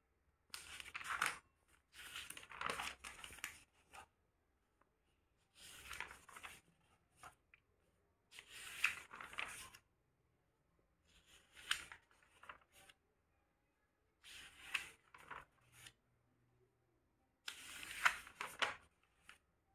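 Paper pages of a notebook being turned one after another, a rustle every two or three seconds with short quiet gaps between.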